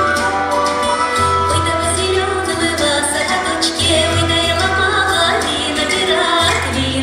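Music playing, with a deep bass note held in long stretches that come round about every two and a half seconds under steady melody lines.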